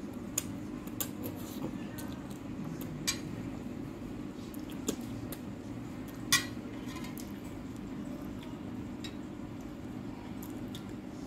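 A fork clinking against a plate several times as spaghetti is eaten, with the loudest clink about six seconds in, over a steady low hum.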